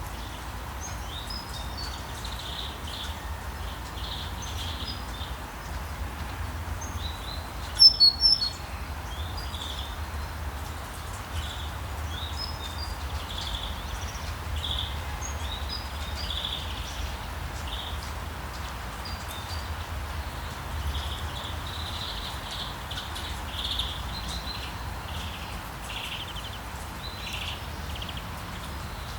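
Birds chirping: many short, high chirps throughout over a steady low rumble, with a louder burst of chirps about eight seconds in.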